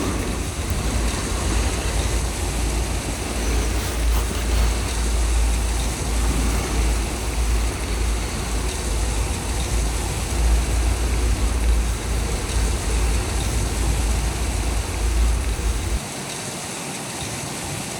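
Strong blizzard wind gusting: a steady rushing hiss over a deep buffeting rumble that swells and eases. The rumble cuts off suddenly near the end, leaving only the hiss.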